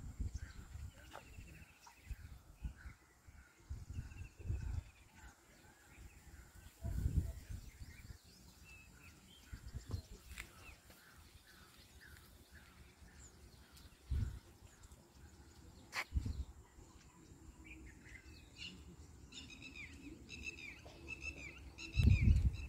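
Birds calling in a steady series of short chirps, joined near the end by a busier twittering. Gusts of wind rumble on the microphone now and then, loudest near the end.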